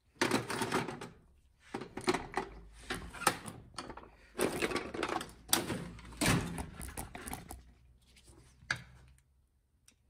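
Irregular clatter of hand tools and small-engine carburetor parts being handled on a wooden workbench: a quick run of clicks and knocks, loudest just after the start and about six seconds in, dying away about nine seconds in.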